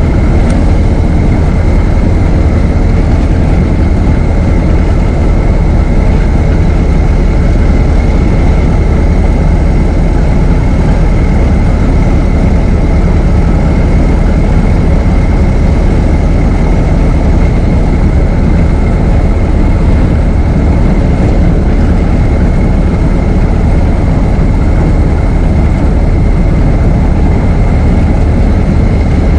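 Ford Model T's four-cylinder engine running steadily while the car is driven, a loud, even low rumble with a thin steady high whine over it.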